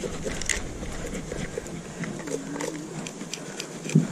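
Knife blade scraping scales off a small black-bellied rosefish against a concrete seawall: a string of short, quick rasping scrapes. A louder thump near the end.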